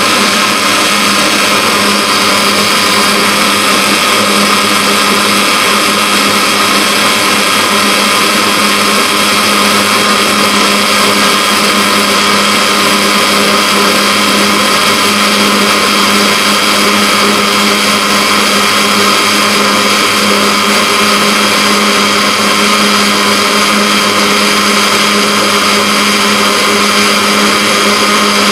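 Electric blender running steadily, blending ginger with water into juice.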